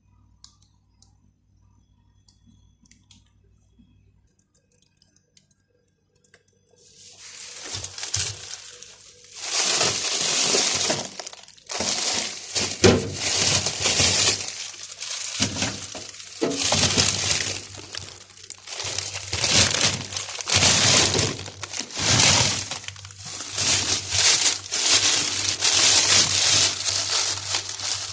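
Packaging being handled, crinkling and rustling in repeated bursts of a second or two. It starts about seven seconds in, after near silence with a few faint clicks.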